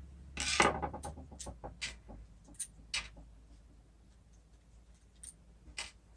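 A series of light clicks and taps of small metal parts and tools being handled while the window regulator motor is taken apart, the loudest cluster about half a second in and a few single clicks after.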